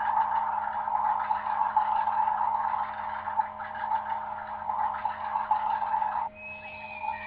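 K'nex Light and Sound Thrill Park set running, a steady mechanical whirring and rattling from the motorised model. About six seconds in it cuts off abruptly, and a quieter sound with a few thin high tones follows.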